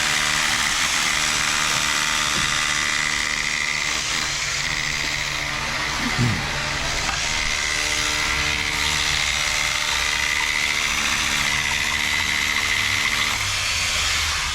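Concrete mixer truck running steadily during the pour, its engine held at a steady speed with a high whine over the hum.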